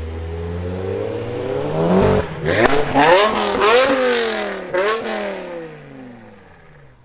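BMW E60 M5's 5.0-litre V10 revved in several quick blips as the car pulls past, the pitch shooting up and dropping back each time. It then settles into a falling note that fades as the car drives away.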